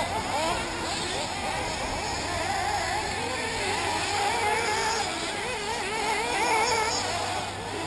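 Nitro-powered 1/8-scale RC buggy engines running, their pitch rising and falling continuously as the cars speed up and slow down.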